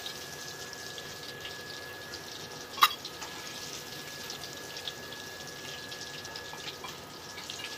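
Breaded fish fingers deep-frying in hot oil: a steady bubbling sizzle with fine crackles. About three seconds in there is a single sharp clink as the metal slotted spoon knocks the pan.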